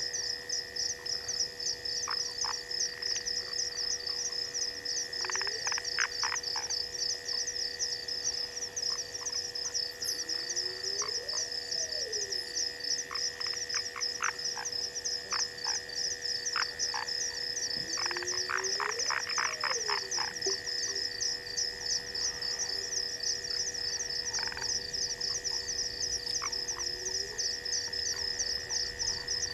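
Night frog chorus: a fast, high pulsing trill runs throughout over steady droning calls, with scattered clusters of clicks and a few slow calls that rise and fall in pitch.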